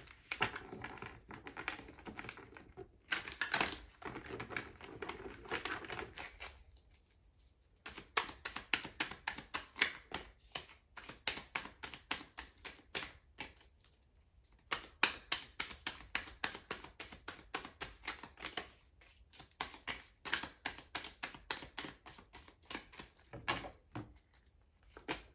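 A deck of tarot cards being shuffled by hand: rapid runs of sharp card clicks in about three long bursts with short pauses between, after a few seconds of softer handling as the deck comes out of its cloth pouch.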